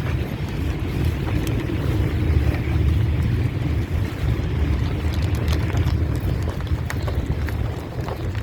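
Steady low rumble of a bus's engine heard from inside the cabin, with small scattered rattles and clicks.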